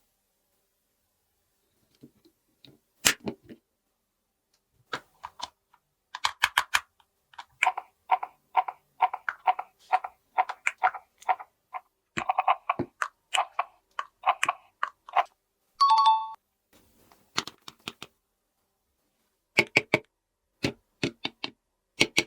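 Small plastic toy pieces clicking and tapping as they are handled, with a dense run of rapid ticks in the middle and a short chime about 16 seconds in.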